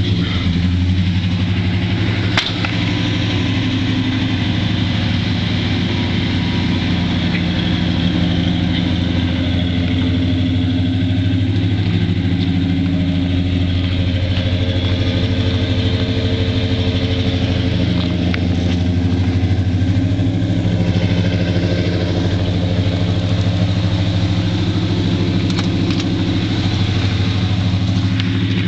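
1986 GMC Sierra pickup's engine idling steadily, its exhaust note coming through Flowtech headers, 2.5-inch pipe and a Flowmaster Super 44 muffler.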